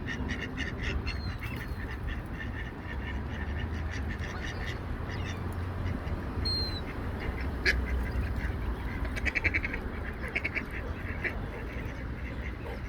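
Mallard ducks quacking in runs of short repeated calls, busiest about nine seconds in, over a steady low rumble. A couple of brief thin whistled bird calls come in about a second in and again past six seconds.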